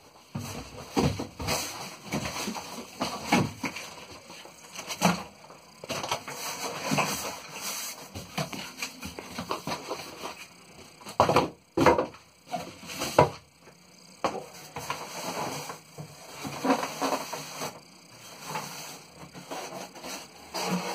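Packaging being handled while a box is unpacked: irregular rustling, scraping and knocks of cardboard, paper and styrofoam foam blocks, with a few sharper knocks about halfway through.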